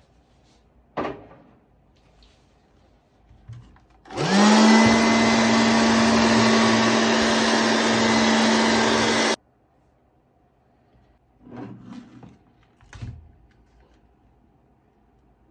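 Homemade cordless vacuum cleaner switched on: its battery-powered motor and fan spin up with a quickly rising whine, run steadily for about five seconds, then stop abruptly. A click comes about a second in, and a few light handling knocks follow near the end.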